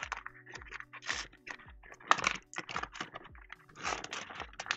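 Clear plastic parts bag crinkling and rustling in short irregular bursts as it is handled, with small clicks from the chair-assembly screws and washers inside. Faint steady background music underneath.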